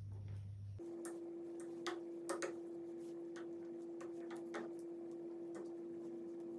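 Metal tongs clicking and tapping against a paella pan as pepper strips are laid in, a few light irregular clicks over a steady hum.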